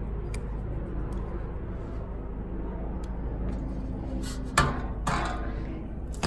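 Metal clicks and knocks of pliers working loose a tractor battery's terminal and hold-down, over a steady low rumble. A sharp clank comes about four and a half seconds in and another half a second later as the battery comes free.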